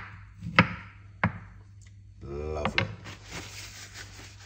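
Kitchen knife striking a wooden chopping board twice, about half a second apart, as kiwi skin is cut away. A short wordless vocal sound follows, then a soft rustling hiss.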